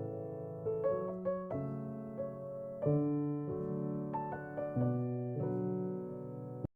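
Gentle background piano music, slow notes and chords sustained over one another; it cuts off abruptly near the end.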